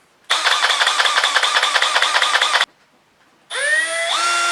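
Power drill with a thin bit: a dense rattling burst of about two seconds as it runs, then a pause. Near the end the motor spins up again with a rising whine that settles to a steady pitch.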